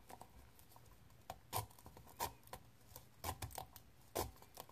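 Fingernails picking and prying at the seal around the lid of a new, unopened can of dip, trying to crack it open: faint scratching with about seven sharp clicks at irregular intervals.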